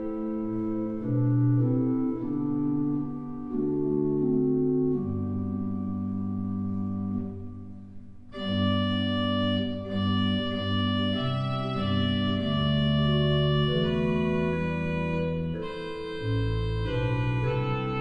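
Church organ playing a Christmas tune in sustained chords. Just past the middle it dips briefly, then comes back fuller and brighter, as if more stops were drawn.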